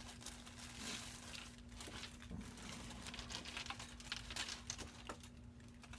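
Plastic parts bag crinkling as it is handled and opened, with small irregular clicks of the parts inside.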